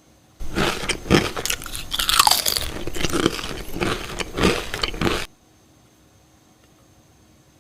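Loud, close crunching and chewing of a crisp potato chip, a dense run of sharp crackles that starts and stops abruptly, with a brief falling squeal about two seconds in.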